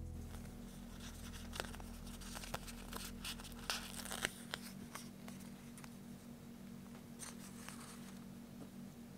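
A clear plastic sticker sheet crinkling and ticking as a sticker is peeled off it, with a cluster of small sharp clicks in the first half. Near the end there is a brief, softer rustle as the sticker is pressed onto the paper page of a planner.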